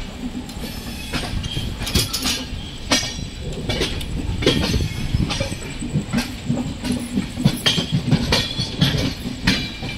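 Passenger express train pulling out over station pointwork, heard from an open coach doorway: a steady low rumble with irregular knocks and clatter as the wheels cross rail joints and points, and short high squeals from the wheels.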